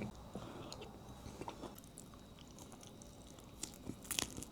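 A person eating close to the microphone: quiet chewing with scattered small mouth clicks, turning into a run of louder, crisper clicks and crunches near the end.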